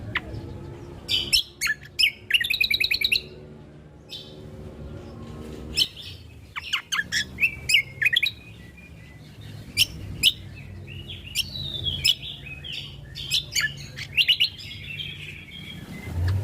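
Cucak kombo (kecial kombo) songbird singing: a lively string of sharp chirps and fast trills, with the busiest, loudest trilling about one to three seconds in. A faint low steady hum runs underneath.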